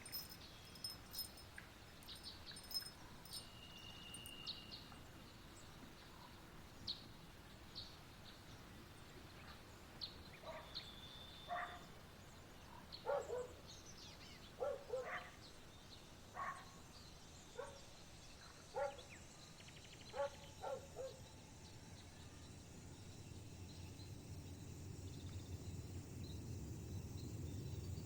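Scattered short animal calls, most of them between about 10 and 21 seconds in, over a faint ambient background. A low rumble swells in the last few seconds.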